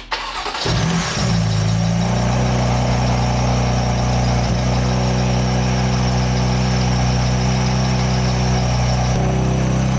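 BMW S55 twin-turbo straight-six comes up to a steady idle within the first second or two, with a loud, steady high-pitched squeak over the engine note. The owner suspects a worn belt tensioner or idler pulley.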